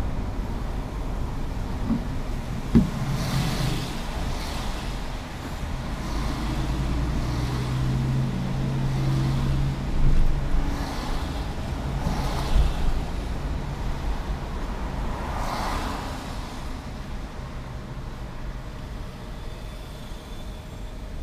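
Car driving on a wet street, heard from inside the cabin: steady road and engine rumble, with tyre hiss that swells several times as oncoming cars pass. There is a single sharp click about three seconds in.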